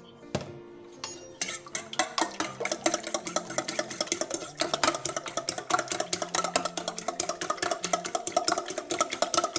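Fork beating raw eggs in a stainless steel bowl: rapid metal clinks of the fork against the bowl, several a second, starting about a second and a half in.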